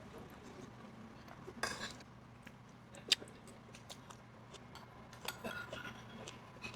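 Metal spoon and chopsticks clinking against a bowl and dishes during a meal: scattered light clinks, with the sharpest one about halfway through.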